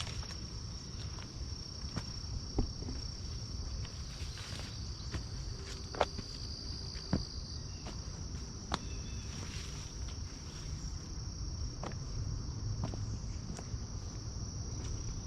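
Steady high-pitched insect chorus trilling without a break, over a hiker's footsteps through woodland undergrowth, with a few sharp snaps of twigs underfoot.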